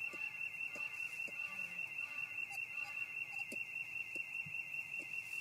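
Lemur clicking calls: short sharp clicks at irregular intervals. Under them runs a steady high-pitched warbling tone that pulses about five times a second and is the loudest sound.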